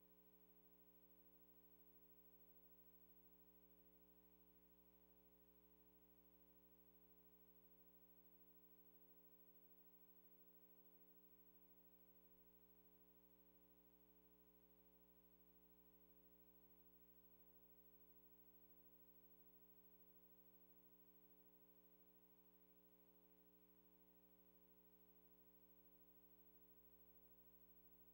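Near silence with a faint, steady electrical hum and no sound from the game.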